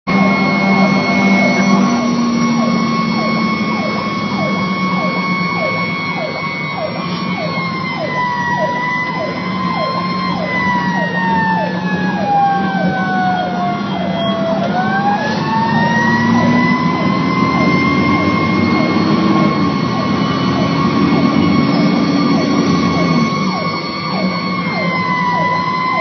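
Emergency vehicle siren sounding over a running vehicle engine: a mostly steady high tone that slides down in pitch about halfway through, then sweeps back up and holds again.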